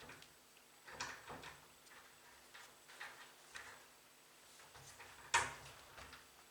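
Scattered small clicks and taps from handling laptop parts and tools, with one sharper knock about five seconds in.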